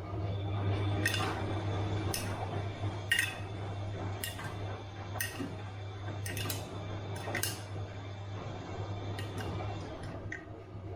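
Bosch washing machine running: a steady low hum, with light sharp clicks roughly once a second as the drum turns.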